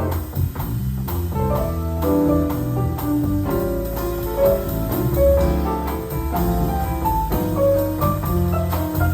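Jazz piano trio playing: piano melody and chords over a walking bass line, with light drums behind.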